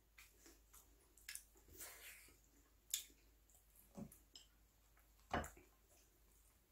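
Faint mouth sounds of a person chewing a pan-fried dumpling with the mouth closed: a handful of soft wet smacks and clicks spread over several seconds.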